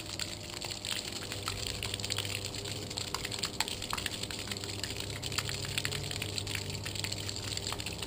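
Rule bilge pump in a Hobie Outback fishing kayak running, pumping flood water out of the hull: a jet of water spurts from the side outlet and splashes onto the hull and grass, with a low steady hum underneath.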